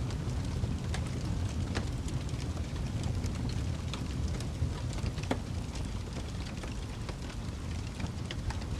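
Wood fire in a fireplace burning with a steady low rumble, overlaid with irregular crackles and small pops from the burning wood.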